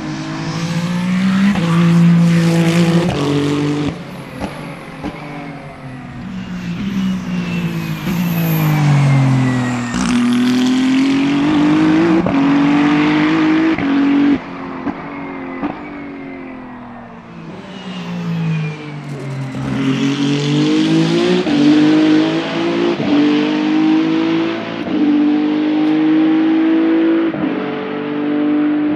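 Race car engine at full throttle, its pitch climbing in steps as it shifts up through the gears, then falling away twice as it brakes and shifts down, before pulling hard up through the gears again.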